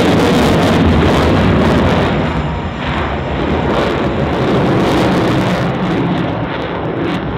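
Loud, steady jet noise from an F/A-18F Super Hornet's two General Electric F414 turbofans as it manoeuvres overhead, dipping slightly about two and a half seconds in.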